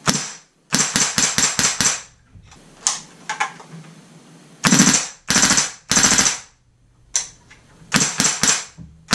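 An airsoft AK with a Daytona all-pneumatic kit fires single shots and short rapid bursts of about five shots a second, a sharp crack for each shot.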